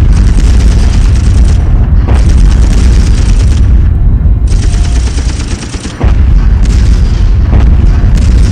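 Wartime air-raid sound effect of a Blitz bombing from inside a bomb shelter: a constant heavy rumble of bomb blasts with sharp cracks of gunfire. The din dips briefly about five and a half seconds in, then comes back abruptly at full strength.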